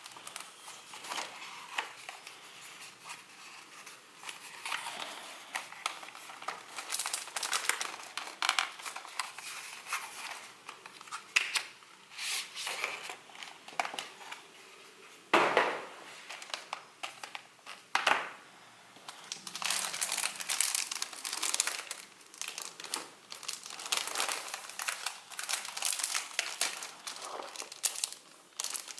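Packaging being handled during an unboxing, crinkling and rustling irregularly, with two louder crackles about fifteen and eighteen seconds in.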